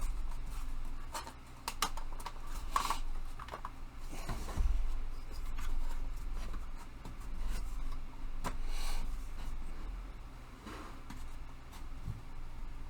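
Rack panels being handled and worked into their slots: scattered light clicks and knocks, with rubbing and scraping as the pieces slide against each other.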